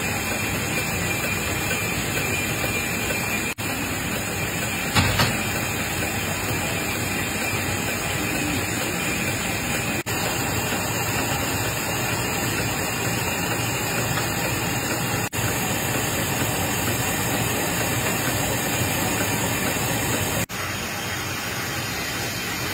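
Tissue napkin folding machine running steadily: an even, continuous mechanical noise from its rollers and folding heads, with one sharp knock about five seconds in.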